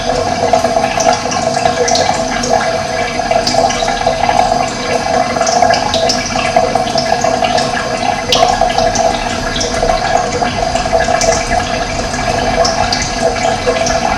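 Running water flowing steadily, with short high sounds scattered through it.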